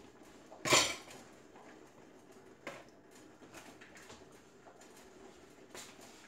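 Kitchen handling sounds: one loud knock about a second in, a sharper click a couple of seconds later and a few faint clicks near the end, over a low steady background.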